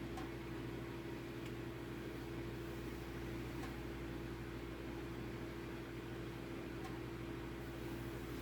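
A steady low hum holding one even tone, with a few faint clicks scattered through it.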